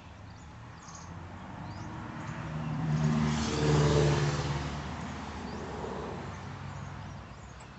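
A motor vehicle driving past: its engine sound swells to a peak about three to four seconds in, then fades away.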